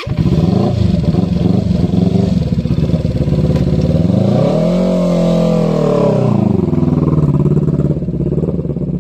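Kawasaki Eliminator motorcycle engine running, revved up once about four seconds in and easing back down to a steady run about two seconds later.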